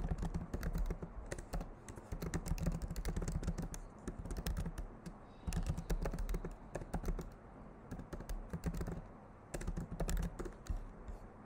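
Typing on a computer keyboard: quick runs of keystrokes in three bursts, with short pauses about halfway through and again near the end.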